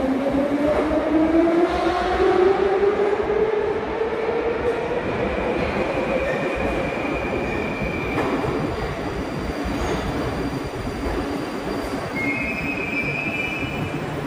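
Metro train pulling out of the terminus platform toward the turnback siding. The whine of its traction motors rises in pitch over the first several seconds as it gathers speed, then gives way to a fading rumble of wheels on rail, with a brief high wheel squeal near the end.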